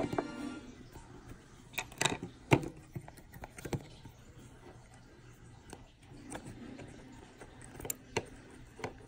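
Small, sharp clicks and taps from fingers handling an opened smartphone's frame and internal parts, about a dozen scattered irregularly, the loudest about two and a half seconds in.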